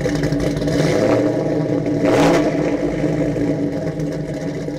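A car engine running steadily, with a short burst of hiss about two seconds in.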